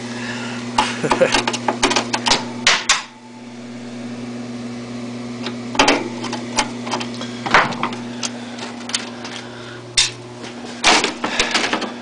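Irregular plastic clicks and knocks from a window air conditioner being handled and its front grille taken off, over a steady low hum.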